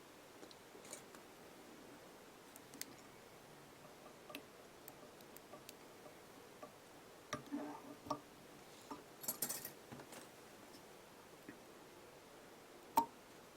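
Faint, scattered clicks and light rustles of small fly-tying tools and thread being handled at the vise while the head of the fly is finished, with one sharper click near the end.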